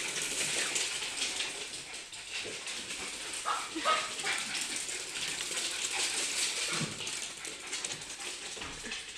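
Small dogs, a Maltese and a Shih Tzu, running on a hardwood floor: a quick, dense patter of claws clicking and scrabbling. A short high whine from a dog comes about three and a half seconds in.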